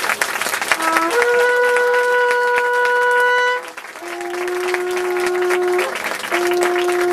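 Shofar blasts: a long steady note that steps up in pitch just after it starts, then two more long steady notes on a lower pitch, over a crowd clapping.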